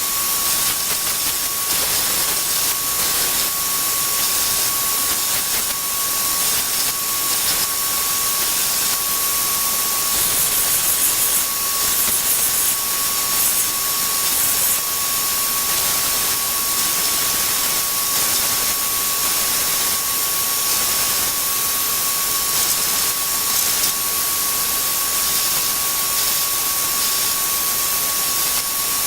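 Electric power sander running steadily on a cherry and walnut box: a constant motor whine over the hiss of abrasive on wood.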